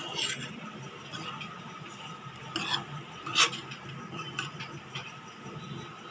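Metal spoon stirring grated coconut in a steel frying pan, scraping the bottom and clinking now and then against the side, the loudest clink about three and a half seconds in, over a low steady hum.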